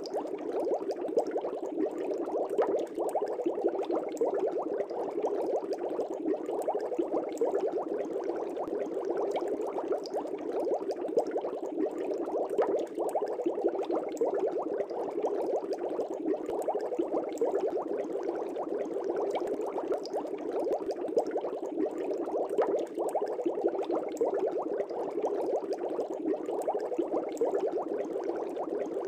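Aquarium air bubbler running: a steady stream of air bubbles rising and bursting at the water surface in a fish tank, a dense continuous bubbling and gurgling.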